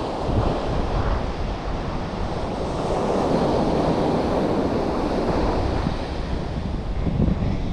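Sea surf washing on the shore, with wind buffeting the microphone; the wash swells for a couple of seconds about halfway through.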